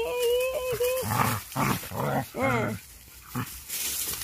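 Dogs play-fighting: a held whine for about the first second, then a run of short, low growls and brief whines that rise and fall in pitch.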